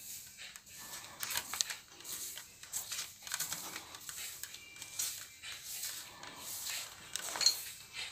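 Broom sweeping a marble floor: irregular brushing swishes, with a sharper scrape about seven and a half seconds in.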